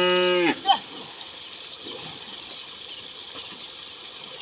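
The end of a cow's long moo, which stops about half a second in, followed by water running steadily through a drain.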